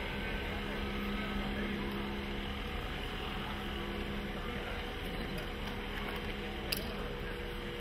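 Steady hum and hiss of trains standing at a station platform, with faint voices from the crowd. One short click comes near the end.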